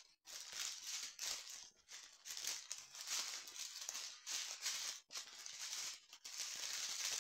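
Plastic film crinkling and rustling in irregular bursts as a diamond-painting canvas is handled to check how well its adhesive sticks.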